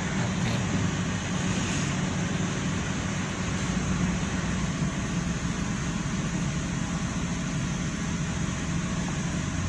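Toyota Vitz engine idling steadily while misfiring: its number 1 cylinder is not firing because of a failed ignition coil.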